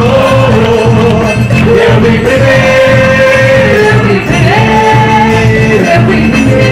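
Loud music with singing: a melody of long held notes that step up and down, over a steady, dense beat.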